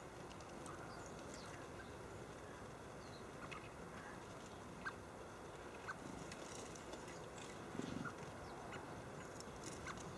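Quiet garden background with a few faint, high bird chirps and scattered light taps. A brief rustle comes about eight seconds in.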